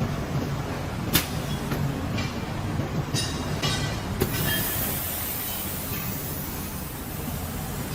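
Acrylic bending machine at work: a steady low hum with sharp metallic clicks and short high squeaks, then a hiss that comes in about halfway through.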